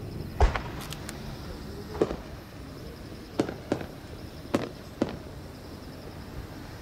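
Large aerial fireworks shells going off: six sharp bangs spread unevenly over about five seconds, the first the loudest.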